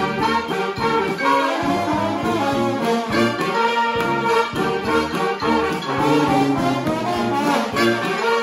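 Brass band playing a tune live, several horns sounding together with low and high parts.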